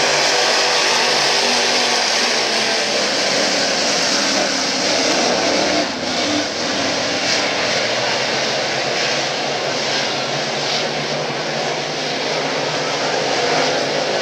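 Engines of a pack of dirt late model race cars running around the track together, a steady loud drone of several V8s.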